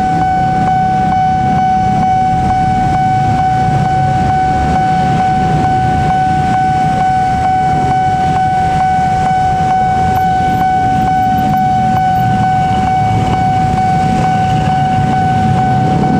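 Railway level-crossing warning alarm ringing steadily: one high tone with a fast, even pulse, sounding while the barrier is down for an approaching train. Under it is a low rumble of idling motorcycle engines.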